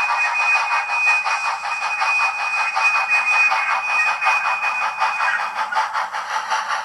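DCC sound decoder in an HO scale Bachmann Spectrum 4-4-0 steam locomotive model playing rapid, rhythmic steam exhaust chuffs through its tiny speaker, thin with no bass. A thin steady high whine runs over the chuffing and stops a little before the end.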